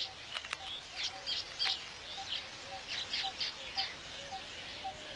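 Weaver birds chattering in quick clusters of short, high chirps, with a soft lower note repeating about twice a second underneath.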